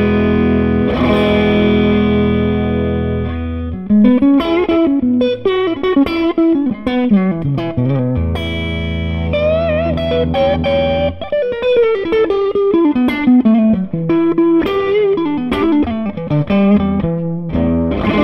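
Electric guitar (Tokai Goldstar Sound, single-coil strat-style) played through an SCW Audio Blackstone Overdrive, a Bluesbreaker-style clone pedal. A chord rings out for a few seconds, then come quick single-note lead runs with string bends, another held chord partway through, and more runs. The overdrive is mild and transparent: the guitar stays clear with only a little grit.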